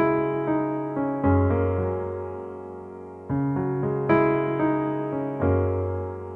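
Background music: the slow electric piano intro of a pop ballad. Chords are struck every second or two and left to fade out.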